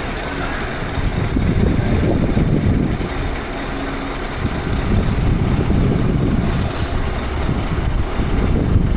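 Heavy truck diesel engine running, with a brief high hiss about six and a half seconds in.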